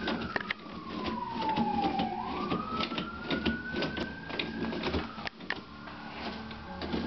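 Toilet paper crinkling and tearing as a cat claws and bites at the roll, in many short scratches. Under it runs a high whine that slides down and then back up over about four seconds.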